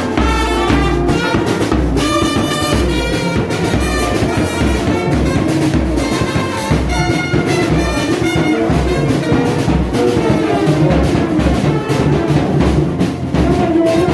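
Music with brass instruments and drums over a steady beat.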